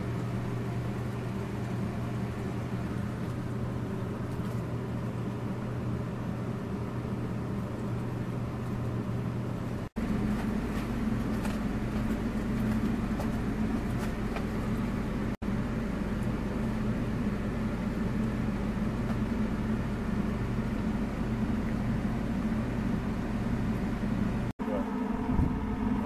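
Haier window air conditioner running on maximum cool with its duct boost fan switched off: a steady hum. About ten seconds in it cuts out for a moment and comes back louder and deeper, with two more brief dropouts later.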